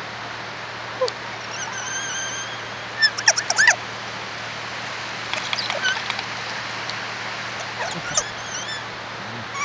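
Kea, the alpine parrot, calling. A held whistled note comes about two seconds in, then a quick run of loud, sharp calls that sweep in pitch, and softer chirps later.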